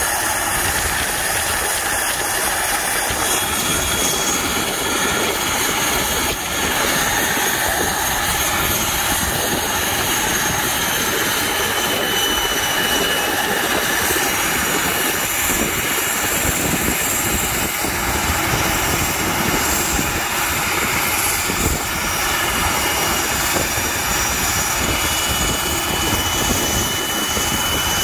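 Casa C-295W's two Pratt & Whitney PW127G turboprop engines running on the ground after start, propellers turning: a steady, loud rush with high turbine whines that drift slightly in pitch.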